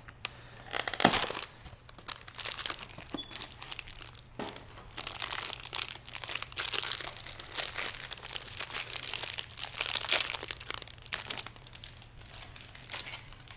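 Plastic packaging crinkling and rustling as new fork seals are taken out of their wrapping, with a sharper burst about a second in.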